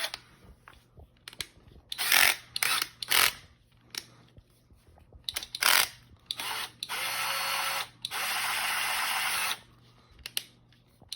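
Hyper Tough 8V cordless drill's brushed motor running in short trigger pulls, then a steady run of about a second and a half; a few sharp clicks come before it.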